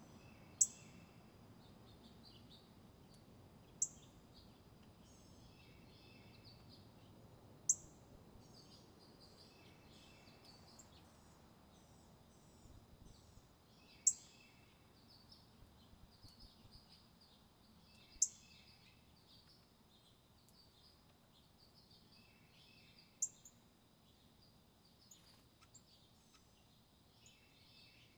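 Wild songbirds calling: a sharp, high, down-slurred call repeated six times about every four to five seconds, with softer chirps and twitters between, over a steady thin high-pitched tone.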